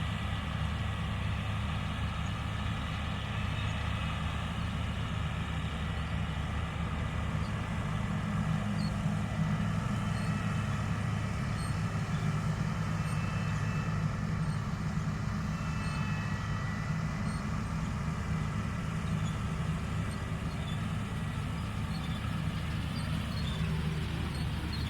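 New Holland CR960 combine harvester running steadily under load while cutting cereal: a deep, even engine drone with steady higher tones above it, and a tone that falls near the end.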